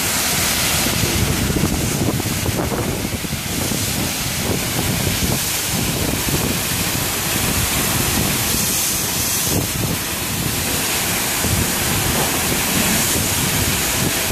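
Conveyor crate-washing machine running, water jets spraying steadily inside its stainless cabinet as plastic crates pass through.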